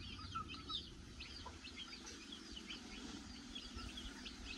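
A brood of about thirty young chicks peeping, many short high chirps overlapping without a break.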